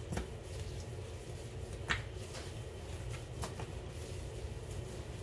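Dough being kneaded by hand on a granite countertop: soft, irregular pats and light knocks, the sharpest about two seconds in, over a steady low hum.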